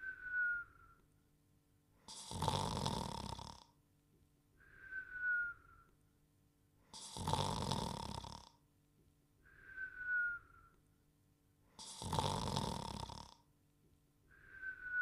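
Cartoon dog snoring in a steady cycle: a long rasping snore on each in-breath, then a short whistle that glides slightly down in pitch on the out-breath, repeating about every five seconds.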